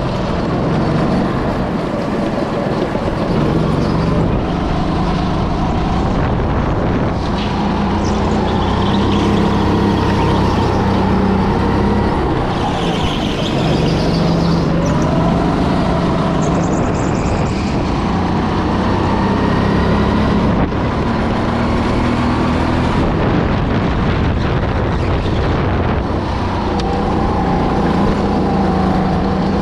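Go-kart engine heard onboard, running loud and continuously through a lap. Its pitch climbs and drops every few seconds as the kart speeds up and slows for corners.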